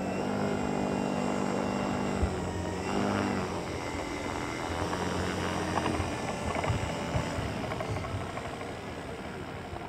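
Propeller and Hacker A60 electric motor of a 120-inch-wingspan ASM Cessna 182 model aircraft running as it rolls along the runway. A steady hum for the first three seconds gives way to a rougher, uneven sound that eases off slightly near the end.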